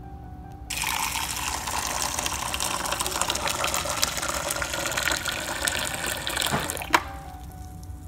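GE Café refrigerator door dispenser pouring a stream of hot water into a plastic cup. The pour starts abruptly under a second in, runs steadily for about six seconds, and stops with a sharp click.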